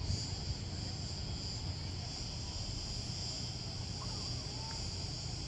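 A steady, high insect chorus shrilling without a break, over a low rumble.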